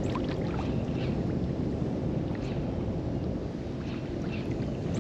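Strong wind blowing across the microphone, a steady low noise, with faint light splashes of water against the boat's hull.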